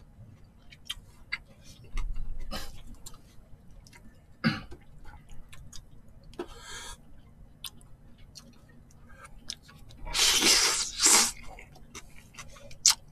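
Mukbang eating sounds: chewing and many small clicks of chopsticks against plates and bowls, then two loud, noisy slurps of thin somyeon noodles near the end.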